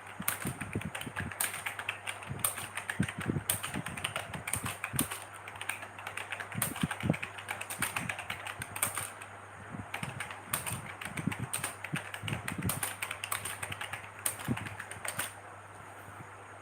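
Fast typing on a computer keyboard: a rapid, uneven run of key clicks that stops near the end.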